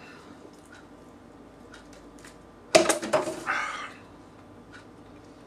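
A dog gives a quick run of barks about halfway through, lasting about a second.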